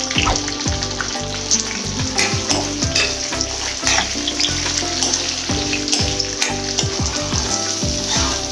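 Food frying and sizzling in a pan, with crackles throughout, over background music with sliding bass notes.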